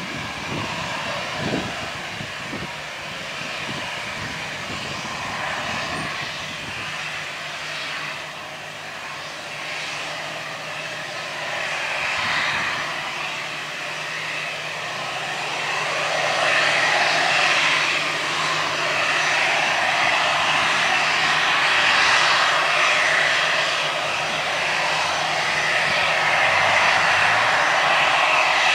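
Airbus A320's twin jet engines running at low taxi power as it rolls toward the listener, a steady whining hiss that grows louder about halfway through as it comes closer.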